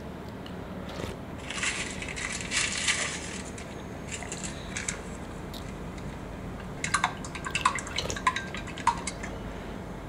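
Eating soup from a ceramic bowl with a wooden spoon: a couple of sipping, slurping sounds in the first half, then a quick run of light clicks and clinks of the spoon against the bowl about seven seconds in.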